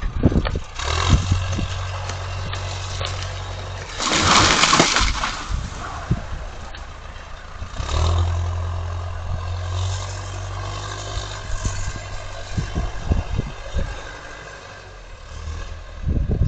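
Engine of heavy equipment, a skid steer or forklift, working a tree's root ball. It runs steadily and swells under load twice, with a short loud noise about four seconds in.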